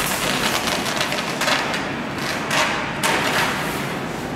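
Large sheets of white paper rustling and crackling as they are lifted, curled and slid across a tabletop, in several separate bursts.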